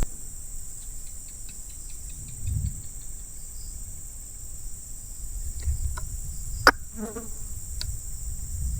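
Steady high-pitched drone of insects. There are a few faint ticks early on, a single sharp click about two-thirds of the way through, and low rumbling underneath.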